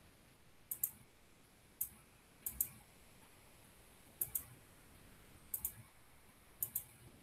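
Computer mouse clicking: six faint, sharp clicks at irregular intervals, most of them heard as a quick double tick.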